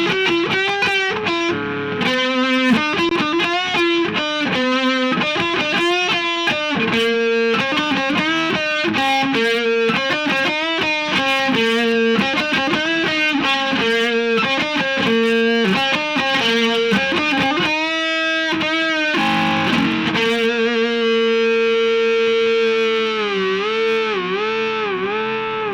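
Overdriven electric guitar playing a fast single-note lead line. Near the end it settles on a long held note, bent up and down in a slow, wide vibrato.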